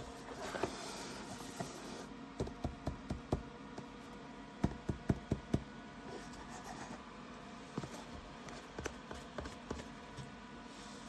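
Light clicks and taps from hands handling a mechanical keyboard and its packaging: a few at a time, then a quick run of about five, then scattered taps, over a faint steady hum.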